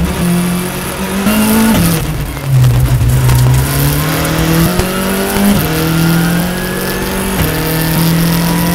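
Škoda rally car's engine heard from inside the cabin, accelerating hard up through the gears: the pitch climbs and drops back at each upshift, several times.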